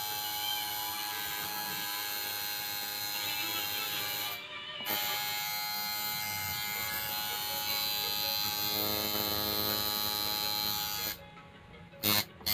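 Tattoo machine buzzing steadily. It cuts out briefly about four seconds in and stops about eleven seconds in, and a short loud sound follows near the end.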